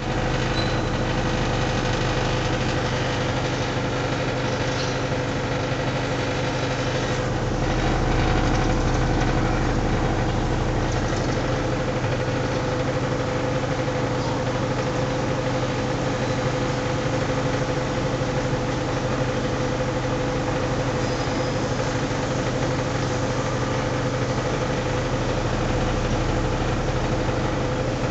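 Air-conditioner outdoor unit (model 63NB) running with a steady hum made of several fixed tones, a noise its owner counts as abnormal.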